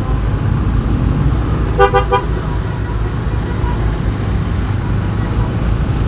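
A vehicle horn sounds in a quick run of short beeps about two seconds in. Underneath is the steady low rumble of a motorbike riding in traffic.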